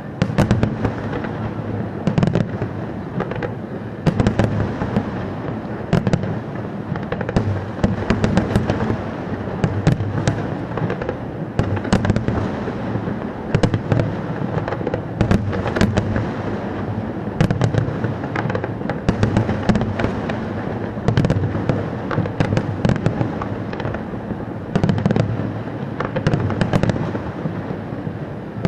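Fireworks display going off nonstop: many sharp bangs and cracks a second over a continuous low rumble of booms.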